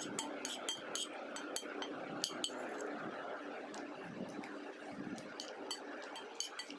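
A metal spoon clicking and scraping against a ceramic plate while scooping rice, many small irregular clinks over steady background noise.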